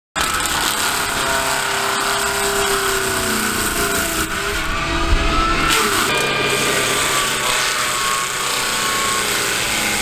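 Skid steer engine and brush mulcher running under load: a loud, continuous machine noise whose whine rises and falls as the cutting rotor works through brush. It changes abruptly about four and six seconds in, where different shots are cut together.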